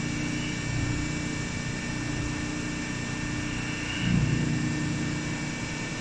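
Hydraulic bagging baler running: its electric motor and hydraulic pump make a steady machine hum with a thin high whine over it, swelling briefly about four seconds in.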